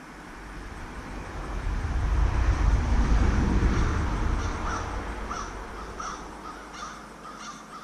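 A low rumble swells to its loudest about three seconds in and then fades away. As it dies down, a bird calls about five times in a row, evenly spaced.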